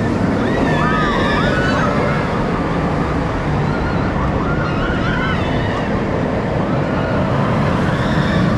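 Heavy wind buffeting the microphone in a steady loud rush, with faint wavering cries of people rising and falling through it.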